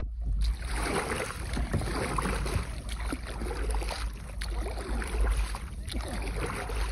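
Choppy water lapping and splashing around a kayak that has just capsized and floats upside down, with a low wind rumble on the microphone.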